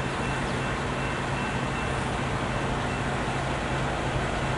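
Diesel locomotives at the head of a loaded coal train approaching, a steady low engine drone over the even rumble of the train.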